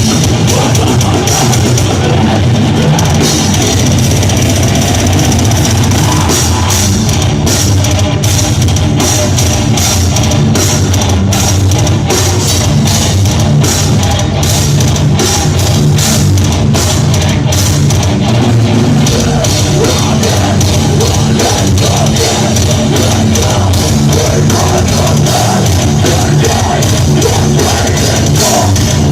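Death metal band playing live: heavily distorted guitars and bass over a drum kit, with a stretch of very fast, dense drumming in the middle.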